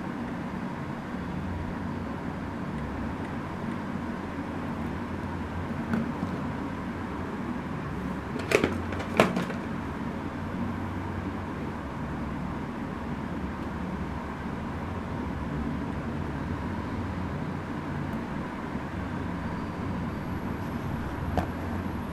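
Plastic toy animals knocking against each other and the cardboard box as they are handled: a few sharp clicks, the loudest two in quick succession about halfway through, over a steady low background rumble.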